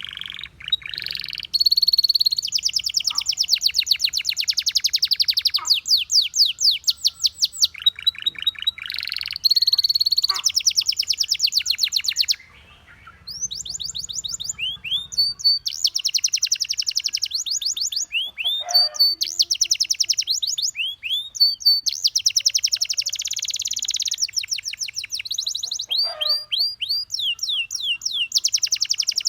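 Canary singing long, rapid trills and rolls of quickly repeated notes, broken by upswept whistled notes between phrases, with a short pause about twelve seconds in.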